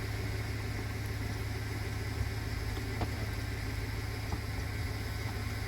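GMC Yukon's engine running steadily with a low, even hum.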